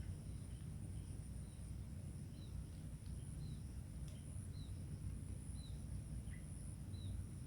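A bird repeating a short falling call about once a second, over a steady high-pitched insect drone and a low rumble of wind.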